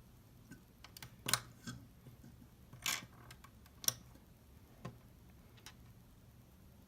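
Plastic Lego bricks clicking and clattering as pieces are handled and pressed together: a few separate sharp clicks at irregular intervals, a second or so apart.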